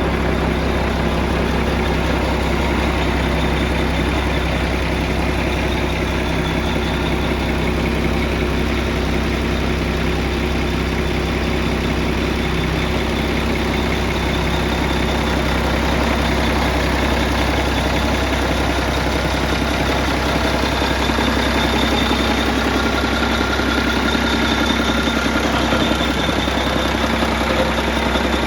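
Ex-army Mercedes Unimog truck engine idling steadily, an even low hum that holds at one pitch.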